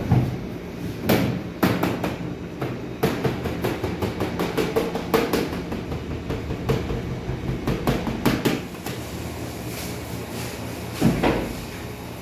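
Commercial bakery workroom sound: a steady machine hum with irregular sharp knocks and clatter, roughly one or two a second. The knocks die away about nine seconds in, leaving the hum.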